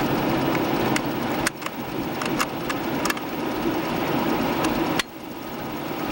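A vehicle engine idling steadily, with a few sharp clicks; the level dips suddenly twice and recovers.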